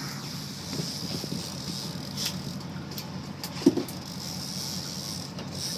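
Fishing boat's engine running with a steady low hum under a constant hiss of wind and water, and one sharp knock a little past halfway.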